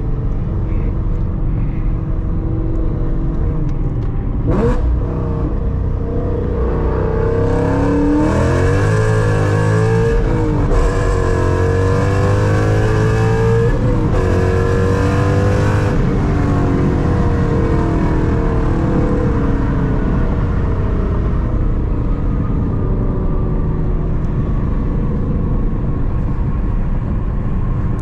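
Ford Mustang GT's 5.0 V8 under way, going to full throttle for a second-gear pull from about eight seconds in: the engine note climbs for several seconds, with a short break near ten seconds, then the driver lifts off around sixteen seconds and it settles back to a lower cruise. A single sharp click about five seconds in.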